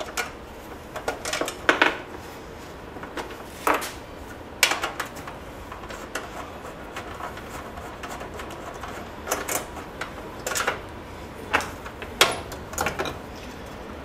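Scattered, irregular clicks and knocks of bolts being taken out and the plastic recoil starter cover being worked loose and lifted off a small 63cc generator engine.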